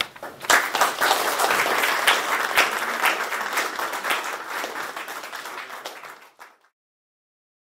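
Audience applauding at the close of a speech, a dense patter of many hands that starts about half a second in and fades out about six seconds in.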